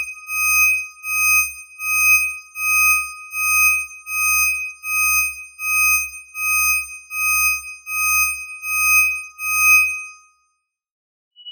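Electronic alarm beeping: one high pitched tone repeating evenly, a little more than once a second, that stops about ten seconds in.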